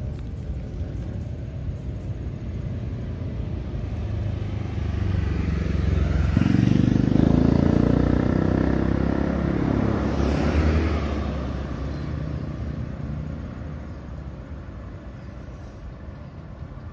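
A motor vehicle passing by: engine rumble builds over several seconds, is loudest about seven to eleven seconds in, then fades away.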